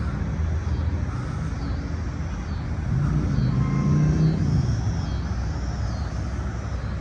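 Low, steady rumble of a motor vehicle engine running, its hum swelling about three seconds in and easing off again.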